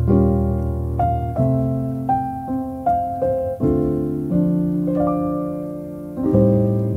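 Solo piano music: chords and single melody notes struck about once a second, each left to ring and fade.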